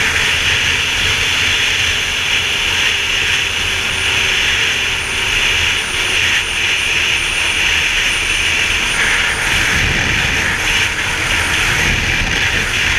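Snowmobile running steadily at speed across snow, its engine and track noise a constant loud drone, with wind rumbling on the helmet-mounted microphone.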